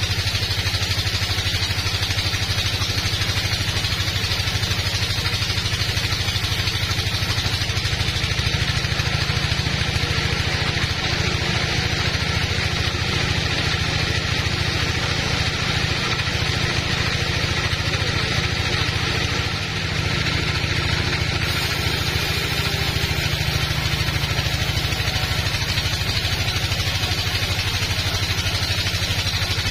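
Sawmill log band saw running steadily while its blade rips lengthwise through a teak log: a constant low machine hum under an even, higher hiss of the cut.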